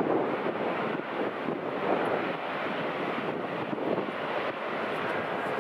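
Distant Airbus A380's four jet engines running at low power as the plane taxis, a steady rushing rumble.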